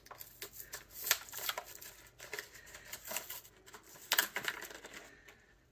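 Irregular crinkling and rustling close to the microphone, with scattered sharp clicks and scrapes, the loudest about a second in and just after four seconds in.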